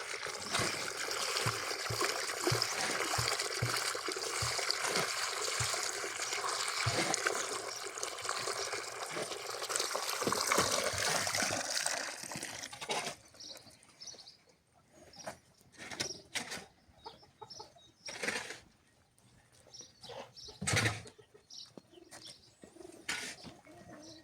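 Water running steadily, as from a hose or tap into the cement mix, with faint knocks under it; it stops sharply about 13 seconds in. After that come scattered short knocks, and pigeons cooing.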